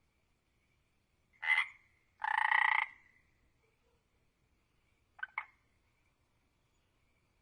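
A frog croaking: a short croak, then at once a longer croak lasting about two-thirds of a second, and a quick double croak about five seconds in, over a faint steady high tone.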